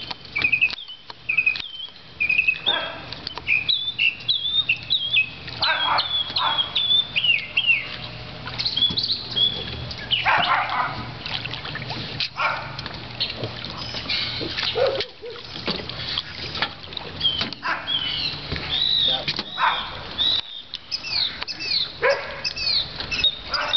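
Birds chirping, many short high calls repeated throughout. Around the middle there are a few splashes and knocks, as a speared longnose gar thrashes at the water's surface beside the boat.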